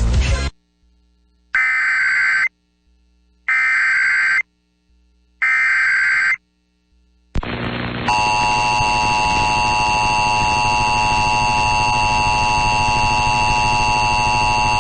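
Emergency Alert System tones. The SAME digital header is sent three times as short buzzing data bursts, each about a second long with a second of silence between. From about eight seconds in comes the steady, harsh two-tone EAS attention signal.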